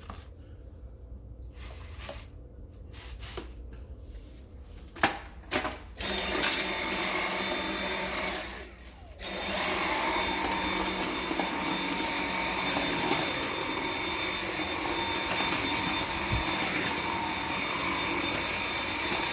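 Dyson V7 cordless stick vacuum, off for the first six seconds with a few knocks and clicks, then its motor starts with a steady high whine. It cuts out briefly as the trigger is let go a little after eight seconds, then runs steadily again.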